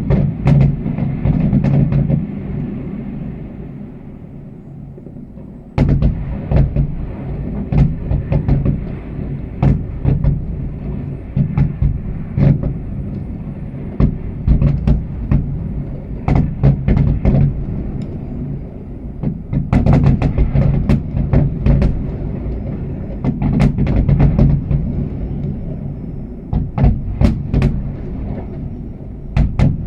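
Fireworks bursting in a dense, irregular run of bangs and crackles over a constant low rumble. The bangs ease off for a few seconds early on, then resume suddenly about six seconds in.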